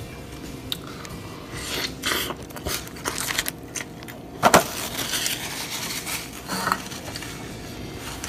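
Close handling noise of a fried chicken sandwich and its plate: crinkly rustles and small clicks, with one sharp knock about halfway through, over a faint steady hum.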